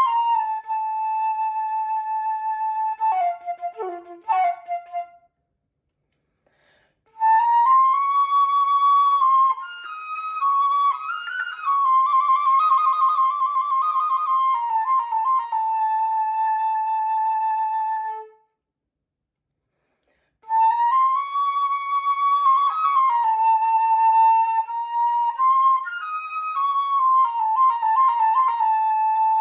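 Solo flute playing long held notes with quick runs of fast notes between them. It stops entirely twice for about two seconds before going on.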